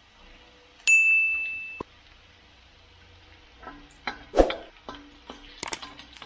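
A bright single-tone ding about a second in that stops abruptly, then a wooden spatula clattering against a stainless steel wok as frying garlic and onion are stirred, followed by a few quick light clicks near the end.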